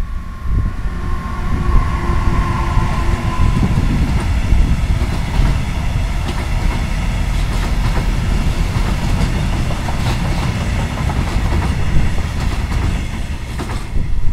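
BLS Cargo Vectron electric locomotive passing close by with a long intermodal train of pocket wagons carrying lorry trailers: a brief tone as the locomotive goes by near the start, then the steady rumble of the wagons' wheels on the rails with repeated knocks.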